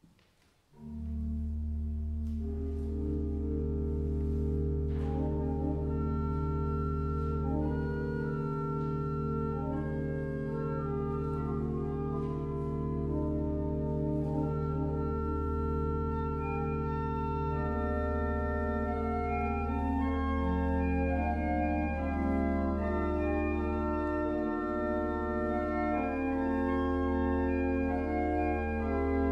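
Church organ begins about a second in and plays slow, sustained chords over a deep held bass note, the chords changing every few seconds.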